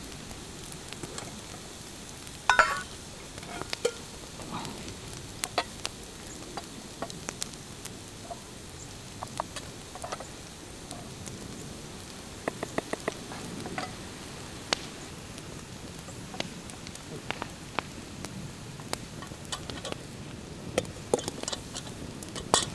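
Metal spoons clinking and scraping against metal camp bowls and a cooking pot as food is served and eaten, in scattered sharp clicks with a quick run of clinks about halfway through. Under it a faint steady hiss and crackle from the campfire.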